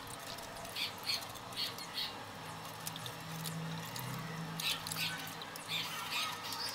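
Wet squishing of hands rubbing and scrubbing boiled sea-snail meat in a steel bowl of water, in short soft bursts every half second or so. This is the slime being scraped and washed off the cooked shellfish meat.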